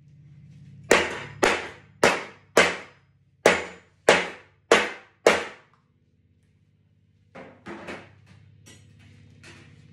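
A metal spoon banging on a metal baking sheet: eight sharp clangs, about two a second with a short pause after the fourth, each ringing briefly. A few fainter knocks follow near the end.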